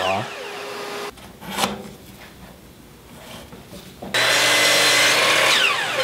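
Electric miter saw switched on about four seconds in, running at full speed for a second or so while rough-cutting wooden trim, then winding down with falling pitch near the end.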